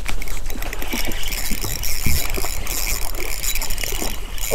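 Steady rushing noise of wind and water, with a trout splashing at the surface near the end.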